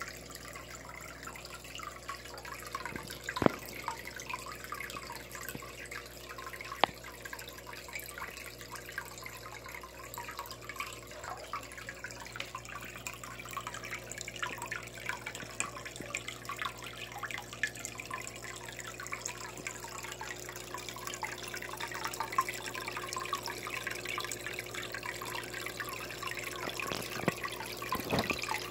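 Water trickling and bubbling steadily at the surface of a goldfish tub, with a steady low hum underneath. Two sharp clicks stand out in the first several seconds.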